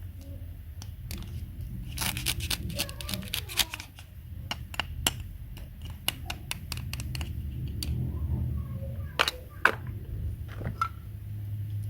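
Irregular sharp clicks and taps, thick in the first half and with two louder knocks about nine seconds in, over a low steady hum.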